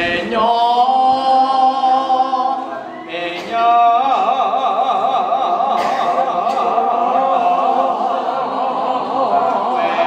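A man singing into a microphone in long, wavering held notes, with a short break about three seconds in and then one long note from about four seconds in.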